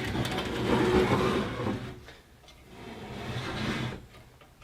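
Two spells of sliding and scraping as metal parts of a small bandsaw are handled while its table is bolted up and tilted back flat.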